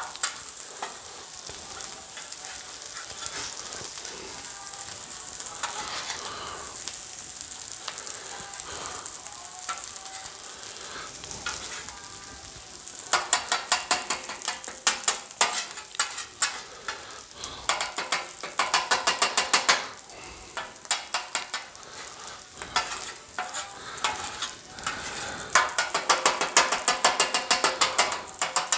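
Rice and vegetables sizzling on a Blackstone flat-top griddle. From about halfway through, rapid clacking and scraping of spatulas working the food on the griddle steel, in runs with short pauses.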